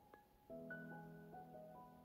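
Faint background music: a slow run of single keyboard notes, each ringing on and fading, starting about half a second in.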